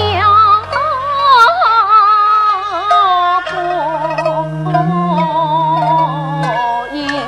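Yue opera music: a wavering melody with heavy vibrato over steady held low notes from the accompaniment.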